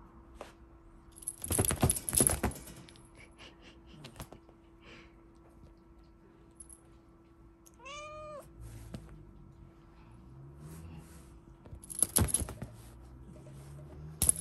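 British Longhair kitten giving one short meow about halfway through, its pitch rising and then falling. Two louder bursts of scratchy noise come about two seconds in and near the end, over a faint steady hum.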